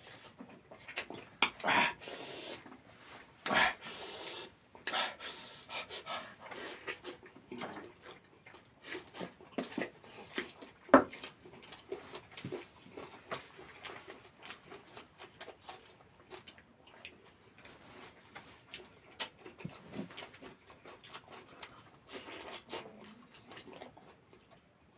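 Close-miked eating sounds: wet chewing and lip smacking while eating chicken leg curry with rice, a steady run of short clicks and smacks. A single sharp knock about eleven seconds in is the loudest sound.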